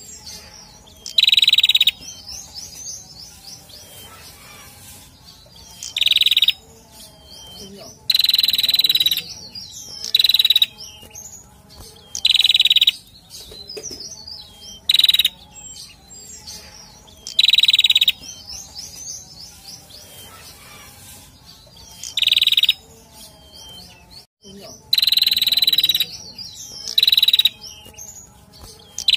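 Male prenjak calling: loud, harsh, high calls of about half a second to a second each, repeated every two to four seconds, with softer high chirps and twittering between them.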